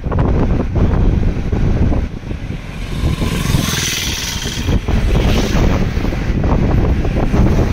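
Wind buffeting the microphone at the open window of a moving car, over the low rumble of the car's road and engine noise. About three seconds in, a louder hiss rises for a second or two.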